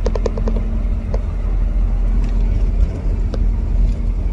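Steady low rumble of a car's engine and tyre noise, heard from inside the moving car, with a few light knocks and rattles.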